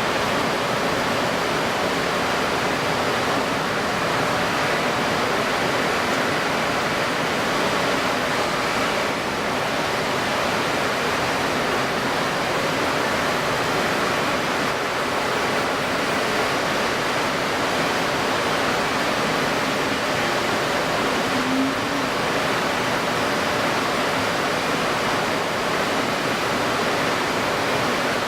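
Steady rushing of strong wind over choppy water, with the water surface churning and lapping.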